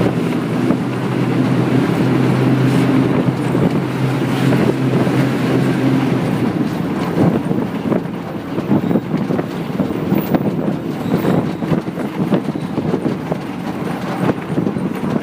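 Bus ride noise: an engine drone with a steady hum that fades out about six seconds in, leaving road noise with frequent rattles and knocks of the bus body.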